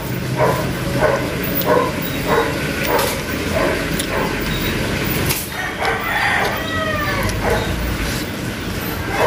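Chickens calling: short repeated clucks about every half-second, then a rooster crowing once, about six seconds in.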